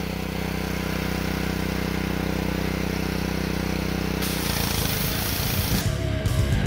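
Gas pressure washer engine running steadily; about four seconds in, a loud hiss starts as the wet sandblasting wand fires into a steel axle housing. Heavy rock music comes in near the end.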